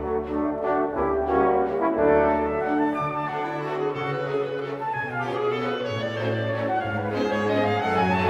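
Orchestral music led by brass, with slow held chords whose notes change every second or so.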